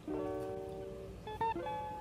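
Plucked-string background music: a chord rings out and fades, then a few quick notes follow about a second and a half in.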